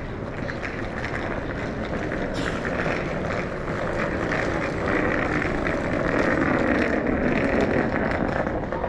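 Street traffic: the steady noise of a vehicle passing close, growing louder and peaking past the middle.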